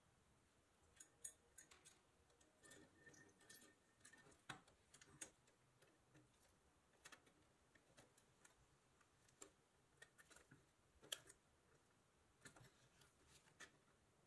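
Faint, irregular clicks and taps of steel pliers against the pressed-steel body of a 1930s Metalcraft toy truck during disassembly, with a brief thin scrape about three seconds in.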